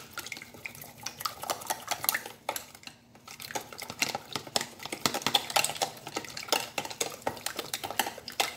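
Chopsticks stirring and beating an egg mixture in a plastic container, clicking and tapping quickly and irregularly against its sides and bottom.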